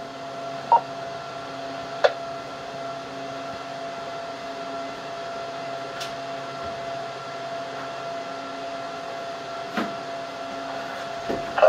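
Steady hum with a faint constant whine and hiss on a quiet amateur radio channel. A short beep comes a little under a second in, followed by a click at about two seconds and a few faint clicks later; the beep is typical of a repeater courtesy tone after a transmission ends.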